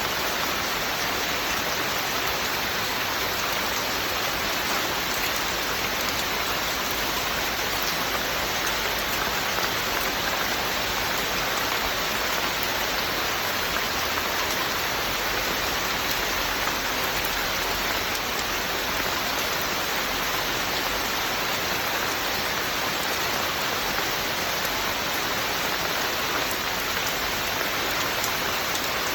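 Steady rain falling, a dense even hiss of drops on surfaces with fine patter and no change in strength.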